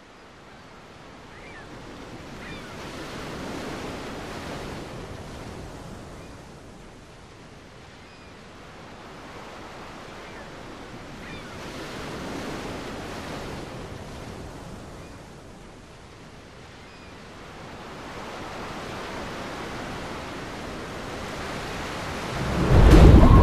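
Ocean waves washing in slow surges that swell and fade about every eight seconds. Near the end a sudden loud, deep crash hits as music begins.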